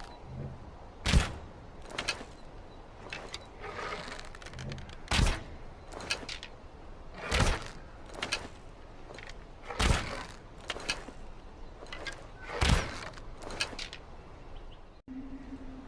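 Longbow being shot repeatedly: five sharp string-release snaps, a few seconds apart, each preceded by a short rustling draw and followed by lighter clicks. A steady low hum starts near the end.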